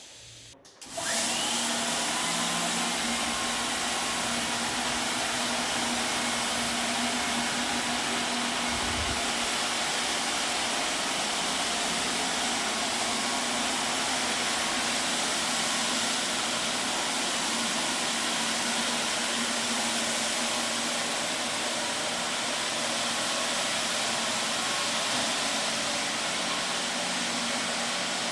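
IPC Eagle CT15 compact walk-behind floor scrubber switching on about a second in, then running steadily: an even whir from its scrubbing and vacuum recovery system over a steady low hum.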